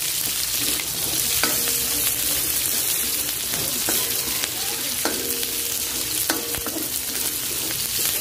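Garlic, onion, ginger and lemongrass sizzling in hot oil in a metal wok while a spatula stirs them, scraping and knocking against the wok every second or so, some knocks ringing briefly.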